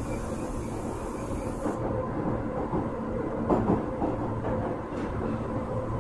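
Interior running sound of an Osaka Metro 23 series subway train, fitted with a Hitachi IGBT inverter drive, at steady speed in the tunnel. The wheels rumble on the rail under a level motor hum, with a louder clack about three and a half seconds in.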